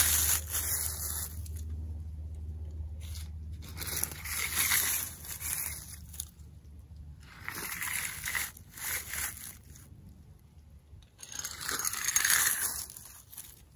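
Small toy cars rolling and being pushed over a gritty surface, their wheels crunching and scraping in four separate passes.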